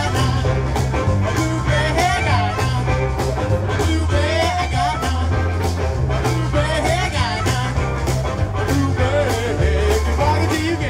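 Live pop-rock band playing: a woman singing lead over electric guitars, bass and a steady drumbeat.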